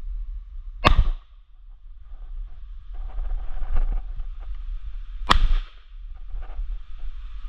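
Two shotgun shots about four and a half seconds apart, each a sharp crack with a short tail, over a steady low rumble.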